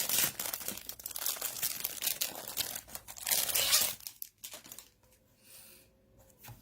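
Packaging crinkling and rustling as it is handled and crumpled, for about four seconds, then only faint handling sounds.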